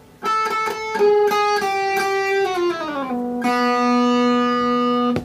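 Electric guitar played through a breadboarded Badass Distortion circuit clipping with a 1N4004 silicon diode and a yellow LED. A quick run of picked notes glides down in pitch, then one long sustained note cuts off abruptly near the end.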